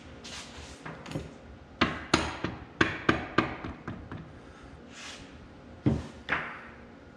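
A copper-headed hammer striking the end of a steel shaft in an Oliver 1855 over/under powershift transmission case, metal on metal. There is a quick run of about five taps about two seconds in, then two more near the end.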